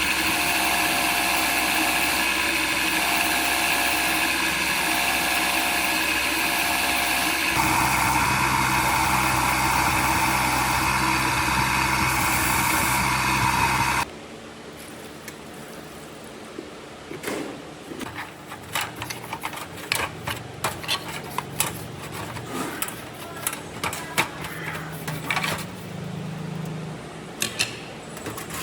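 A power tool running steadily, its tone changing about halfway through, then stopping suddenly. After that come irregular light clicks and taps of hand work.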